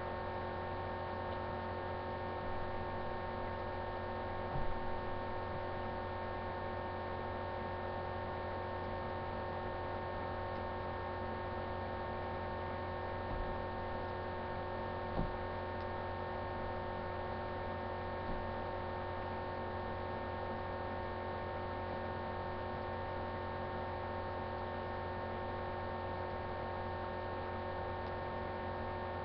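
Steady electrical hum made of several held tones, with a few faint brief knocks about five seconds in and again about fifteen seconds in.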